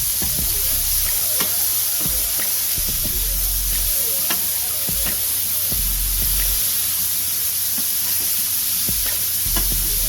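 Smash burger patties frying on a hot steel griddle plate: a steady sizzling hiss with scattered pops and crackles of spitting fat.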